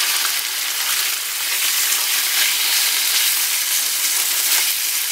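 Lamb liver frying in very hot olive oil in a frying pan: a loud, steady sizzle, the liver freshly added to the well-heated oil.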